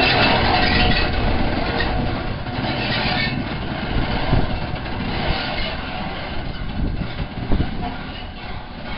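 LNER A1 Pacific steam locomotive moving slowly along station track: steam and running-gear noise with a few sharp knocks, fading as it draws away.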